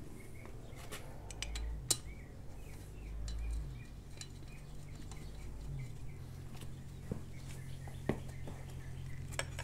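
Scattered light metallic clicks and taps as a motorcycle's valve cover is seated by hand and its bolts are set in, over a low steady hum.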